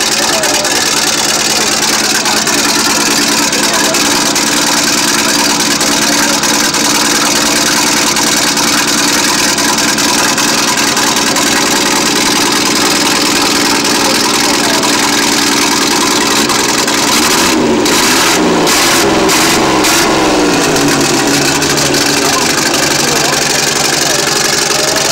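Engine of a 1929 Imperie GP racing car running loud and steady at idle, revved briefly a few times about three-quarters of the way through.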